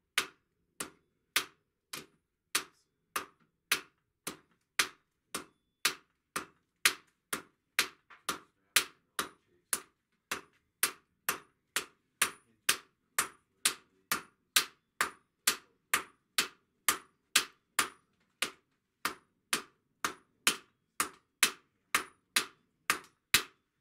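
A blacksmith's hand hammer and a striker's sledgehammer hitting hot steel on an anvil, taking turns in a steady rhythm of about two sharp blows a second.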